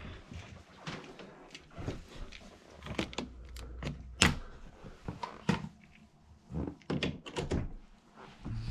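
Irregular knocks and clicks of objects being handled, about a dozen spread unevenly, the sharpest a little after four seconds in.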